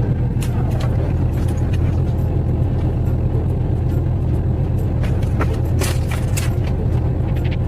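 A loud, steady low rumble with a faint steady hum above it and a few scattered clicks.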